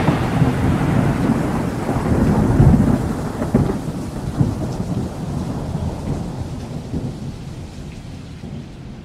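Thunderstorm sound: a low rolling rumble with a rain-like hiss over it, fading out steadily.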